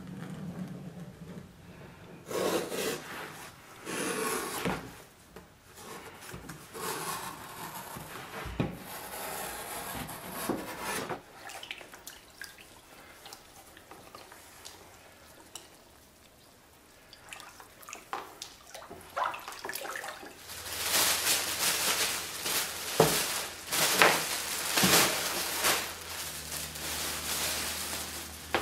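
Hands rubbing and shifting a paper pattern and heavy leather on a wooden table, then water sloshing and splashing as a cut leather piece is dipped and soaked in a plastic tub of water, loudest near the end.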